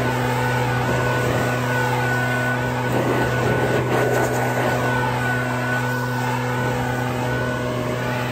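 Gas-powered leaf blower running steadily at full throttle, its engine tone held over a rush of blown air that swells and shifts as the nozzle is moved around.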